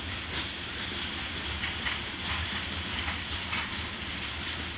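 Freight train's covered hopper cars rolling past, a steady rumble and rattle of steel wheels on rail.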